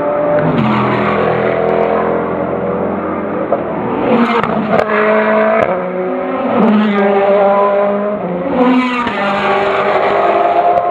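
Race car engines passing one after another, each rising in pitch as it accelerates and shifts up through the gears. There are a few sharp cracks about halfway through.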